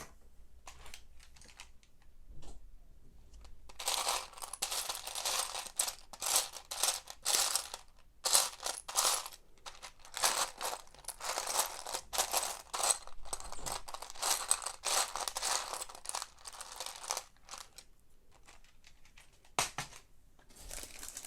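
Loose Lego Technic pieces clattering and rattling as a hand rummages through a small plastic parts container. After a few light clicks, a dense run of rattling starts about four seconds in and dies down a few seconds before the end.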